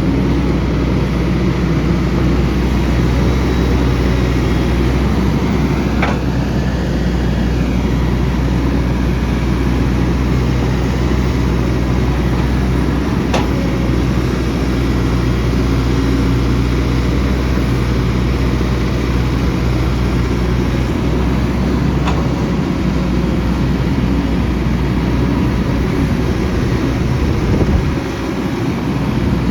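Excavator's diesel engine running steadily under load while it works the hillside, with a few sharp knocks.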